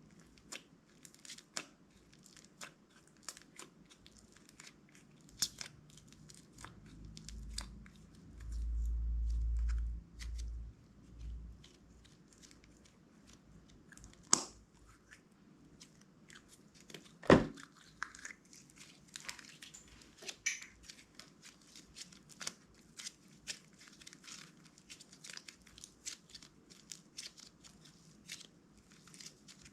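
Hands working clear slime and its containers: scattered sticky crackles, clicks and crinkling, with two louder knocks partway through. A few seconds of low thudding come about a third of the way in.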